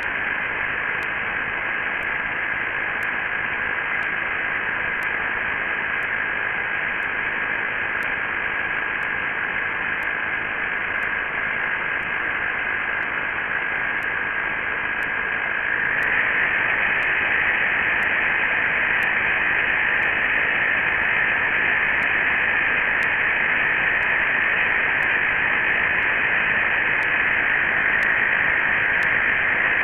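Two 12-volt air compressors running together in parallel with a steady buzzing hiss, which gets louder about halfway through.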